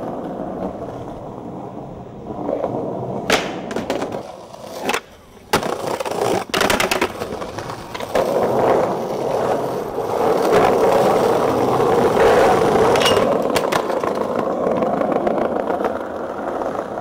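Skateboard wheels rolling over stone paving, getting louder about halfway through, with several sharp clacks of the board hitting the ground.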